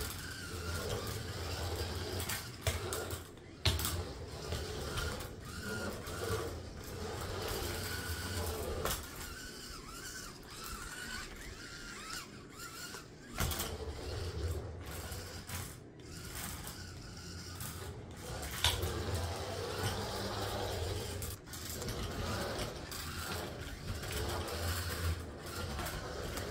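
Small DC gear motors of an Arduino RC car whirring in runs as the car drives about on a hard floor. They stop for a few seconds near the middle, and there are a few sharp knocks.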